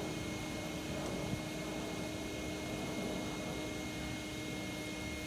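Steady background hum and hiss, with two faint constant tones, one low and one high, and no distinct events.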